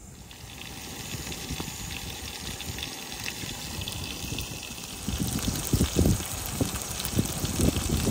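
Steak frying in a hot pan on a gas hiking stove, just flipped: a steady sizzle that grows louder and more uneven, with irregular pops, from about five seconds in.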